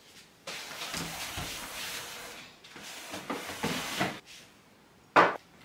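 A cloth wiped and rubbed across the top of a bedside table for a few seconds, with a few small knocks, then one sharp knock about five seconds in.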